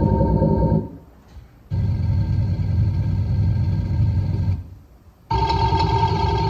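THOR exhaust-sound simulator on a Tesla Model Y playing a steady synthetic engine drone through its two speakers. It cuts out twice, each time for under a second, and comes back with a different tone as the app switches between simulated exhaust sounds.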